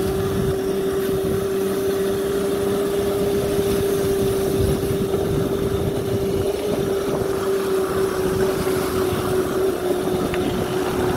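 Electric motorcycle powered by Makita tool batteries riding along: its motor gives a steady whine that holds one pitch, dipping slightly near the end, over wind and road rumble.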